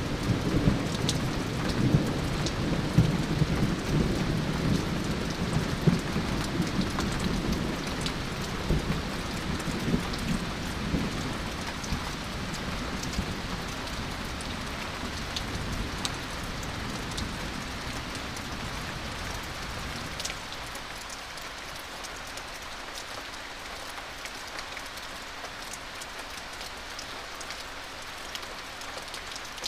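Thunder rumbling and slowly dying away over about twenty seconds, under steady rain with scattered drops ticking.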